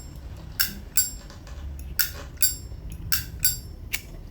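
A 1967 Zippo lighter's hinged lid snapped open and shut over and over: about six crisp metallic clicks, each with a short bright ring. This is the lid-and-cam 'Zippo click' that collectors listen for to judge a vintage lighter, and here it is called flawless.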